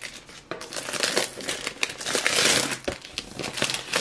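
Crinkling and crackling of the clear plastic wrap on a cardboard perfume box as it is handled in the hands, with many small clicks, loudest a little past the middle.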